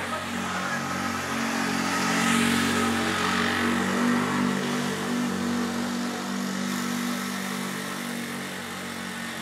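A vehicle engine running steadily, with a rushing sound that swells and fades about two to four seconds in.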